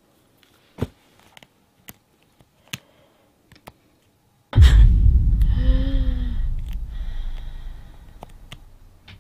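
A few faint clicks, then about four and a half seconds in a sudden deep boom that dies away slowly over several seconds, with a brief low hum over it: a horror-film impact sound effect.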